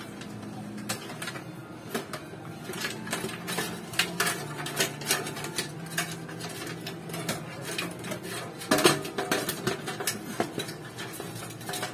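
Irregular metallic clinks, clicks and knocks of metal parts being handled while a desktop computer's power supply is swapped out, with a louder clatter about nine seconds in.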